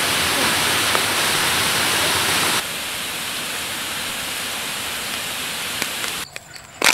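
Waterfall rushing steadily over rock ledges. A little over a third of the way in it drops abruptly to a quieter, steady rushing, and a single sharp click sounds near the end.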